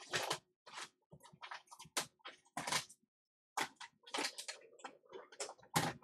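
Someone rummaging through stored parts and boxes: irregular clatter and knocks of objects being handled and moved, with a short pause about three seconds in.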